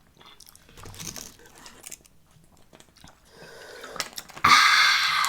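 Crisp chips being crunched and chewed close to the microphone, faint and scattered at first, with a loud, dense crunching noise in the last second.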